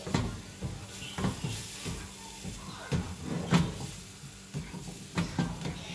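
Plastic slotted spatula scraping and knocking against a nonstick frying pan as a thick batter is stirred: irregular knocks, the loudest about three and a half seconds in.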